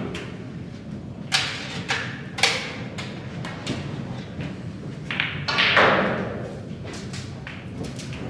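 A few sharp knocks and clicks from snooker balls and cue as a shot is played at the pack of reds, the loudest about two-thirds of the way in.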